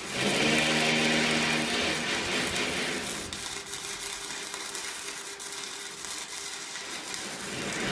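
An electric power tool starts suddenly and runs at speed: a steady motor whine with a loud hiss over the first couple of seconds, then an even, quieter running.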